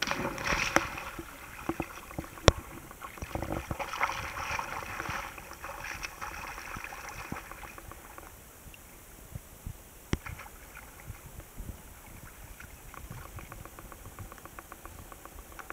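A child jumps feet-first into a shallow river and lands with a splash, followed by a sharp knock. For several seconds after she splashes and paddles through the water. The splashing stops about halfway, leaving quieter water with small scattered knocks as she climbs back onto a rock.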